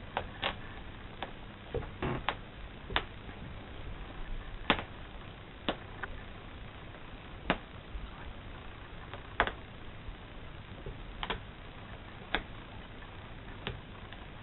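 Irregular sharp clicks and taps, roughly one a second but unevenly spaced, some louder than others, over a steady low hiss.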